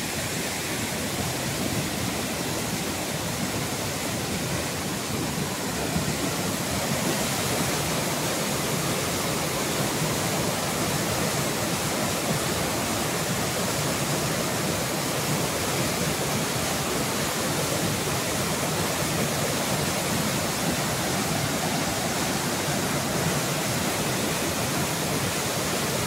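Waterfall carrying a heavy flow, brown water pouring over rock ledges in a steady rush of water noise, a little louder from about six seconds in.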